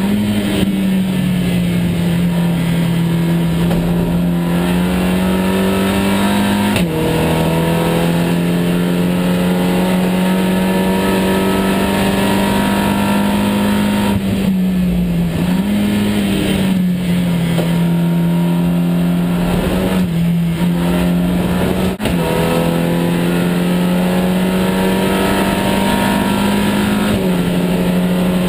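SEAT Supercopa race car's engine at racing speed, heard from inside the stripped cockpit: revs climbing under load, with gear changes about seven seconds in and several more in the second half.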